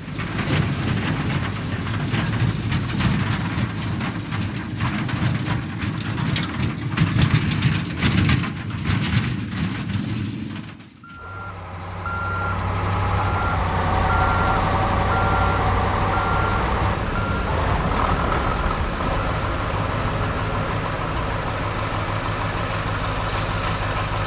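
A loud rumbling noise full of rapid crackles for about the first ten seconds. Then a vehicle's reversing alarm beeps about once a second over a steady engine hum.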